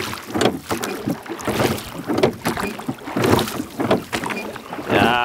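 Wind buffeting the microphone, mixed with water splashing and lapping around a small rowing boat under way, in uneven gusty surges.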